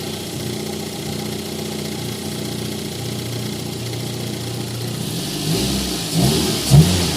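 Toyota Corolla engine idling steadily, then revved in a few quick throttle blips near the end while its low, dropping idle is being checked.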